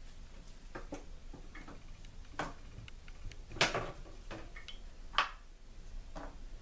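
Scattered soft taps and clicks, about half a dozen at irregular intervals, as sliced onion pieces are dropped by hand into a foil baking pan of sauce and broth; the sharpest comes a little past halfway through.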